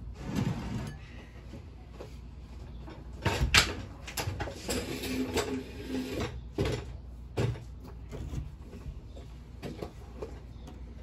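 Irregular knocks and clatter of objects being handled, with a brief rustle at the start and the loudest knock about three and a half seconds in.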